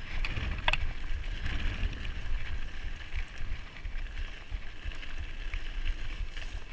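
Mountain bike rolling fast downhill over a rough, stony trail. Wind buffets the microphone with a heavy rumble, over a steady hiss of tyres on loose stones and the rattle and clatter of the bike. One sharp clack comes a little under a second in.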